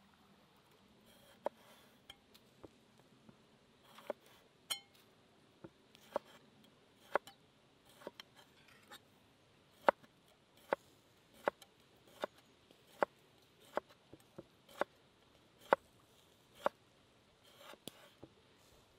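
Large knife slicing pickled gherkins on a wooden cutting board: a sharp knock of the blade on the board a little more than once a second, with a few scattered clicks in the first seconds.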